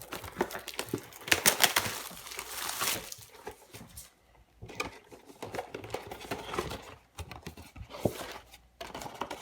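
Packaging of a trading-card booster box being handled: irregular crinkling and rustling with light taps, pausing briefly about four seconds in and again about seven seconds in.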